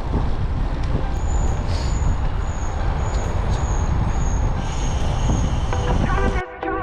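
Strong wind buffeting the microphone, a steady low rumble, with a faint high whine that pulses about every half second. Near the end the wind noise cuts off abruptly and music comes in.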